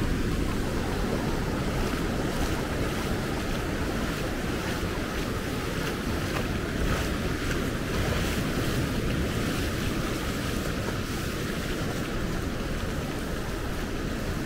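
Ocean surf rushing steadily, with wind buffeting the microphone.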